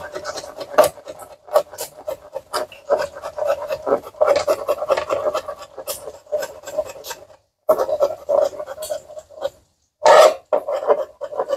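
Large kitchen knife chopping and mincing seasonings on a plastic cutting board: quick, irregular knocks of the blade on the board, with a couple of brief pauses.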